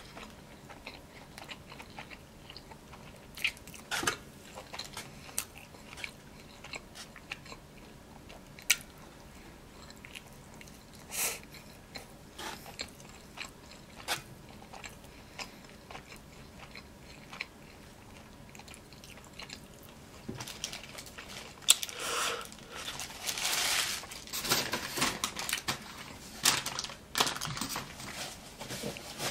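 Close-miked mouth sounds of a person chewing and biting a cheeseburger, with soft, scattered wet clicks and smacks. A louder, denser run of sounds comes in the last several seconds.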